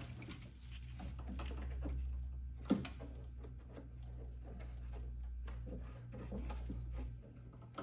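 Scattered clicks, taps and knocks of a vehicle wiring harness and its plastic clips and connectors being handled and fitted, with a sharper knock about two and a half seconds in, over a steady low hum.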